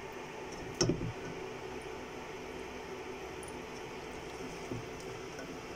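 Wooden spoon stirring thick dal and spinach in a saucepan, with a sharp knock of the spoon against the pan about a second in and a lighter one near the end, over a steady low hum.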